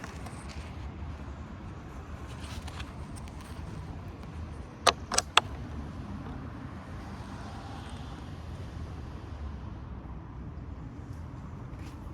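Three sharp clicks close together about five seconds in, over a steady low rumble.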